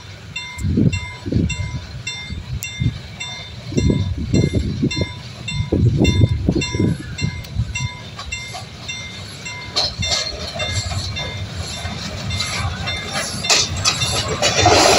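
B2B class steam locomotive No. 213 approaching at walking pace, its exhaust giving low, uneven chuffs. Toward the end a broad hiss of steam grows louder as the engine draws close.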